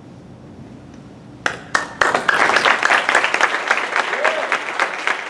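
Audience applauding: a few scattered claps about a second and a half in, then full applause from about two seconds in.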